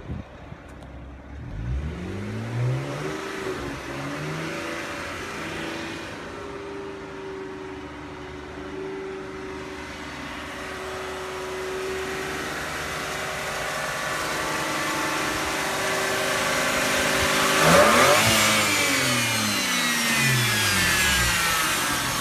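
BMW 335i's turbocharged straight-six running during an engine carbon clean with the cleaning gas fed into its intake. It is revved up and back down a couple of times near the start, then runs steadily, then is revved hardest near the end and falls back.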